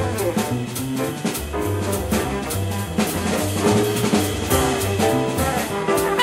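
Jazz ensemble playing a swing tune: a double bass walking in steady steps under a drum kit's cymbal strokes, with horns playing lines above.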